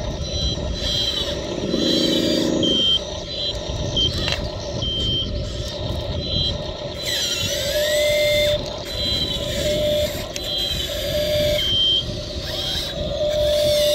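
Small electric motors and gearing of a remote-control model excavator whining in short spurts as the boom, bucket and swing are worked, each whine starting and stopping with the controls, over a rough grinding undertone.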